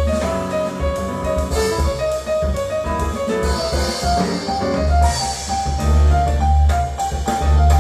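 Jazz piano trio music, with piano, double bass and drum kit, played back through Triangle Borea BR03 BT powered speakers and picked up by microphones in the room.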